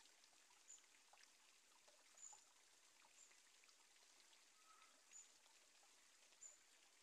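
Very faint trickle and splash of water running from a pipe, with small drips and faint high chirps now and then.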